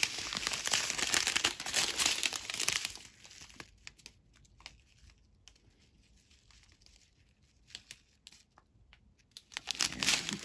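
Thin plastic zip bags of diamond painting drills crinkling as they are handled. It is dense for the first three seconds or so, then drops to a few scattered light rustles, and picks up again near the end.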